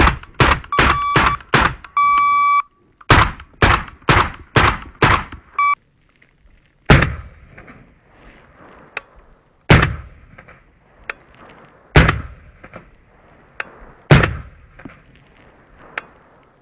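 Suppressed AR-15 carbine (BCM, 11.5-inch barrel, ASE Utra Dual suppressor) firing two quick strings of about six shots each, then four slower single shots about two seconds apart. A steady electronic beep sounds during the first few seconds of rapid fire.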